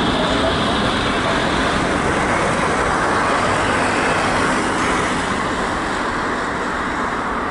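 Jet noise from a Boeing 737-800 taking off: a loud, steady rush that slowly fades and turns duller over the last few seconds, as the aircraft moves away.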